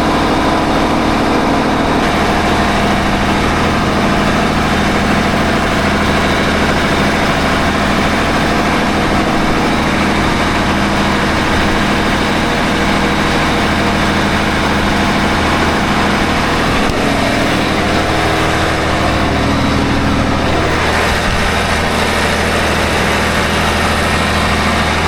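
Volvo marine diesel engines running steadily at cruise, heard loud and close from inside the engine room.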